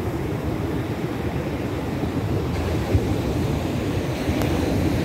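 Steady wash of ocean surf on a beach, with wind rumbling on the microphone and a single brief bump about three seconds in.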